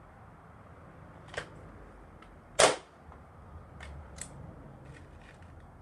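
A .22 Remington Tyrant air rifle firing once, a single sharp crack about two and a half seconds in, with a few fainter clicks around it.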